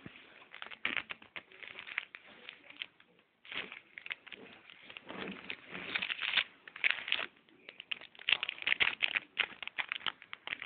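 A West Highland terrier snapping and mouthing at a finger, with snuffling and scuffling sounds coming in short, irregular bursts that grow busier about halfway through.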